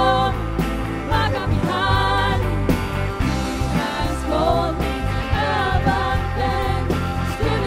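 Live worship band playing a Christian worship song, with women singing the melody over acoustic guitar, keyboard and electric guitar.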